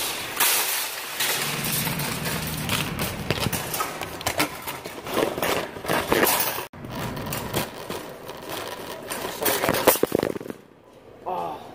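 Metal wire shopping cart rattling and clanking as it is pulled out of a row of nested carts and pushed along: a dense, irregular clatter of many short knocks.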